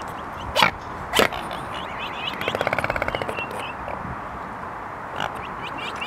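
Animal calls: two short, sharp bark-like calls about half a second apart, then a fast rattling call lasting about a second, with small chirps above a steady outdoor hiss.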